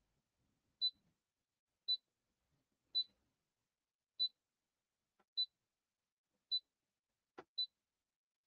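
Brother PE800 embroidery machine's operation panel beeping to acknowledge key presses: a short high beep each time the arrow key is pressed, about once a second, eight times. There is a faint click just before the last beep.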